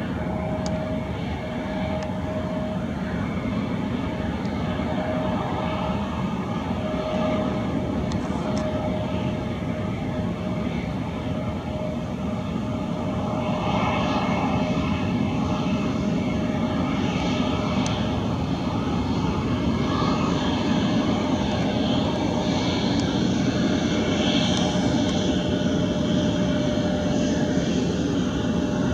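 Bombardier CRJ-900LR regional jet's two rear-mounted turbofans at taxi idle: a steady whine over a low rumble. It grows louder about halfway through as the jet turns toward the listener and comes closer.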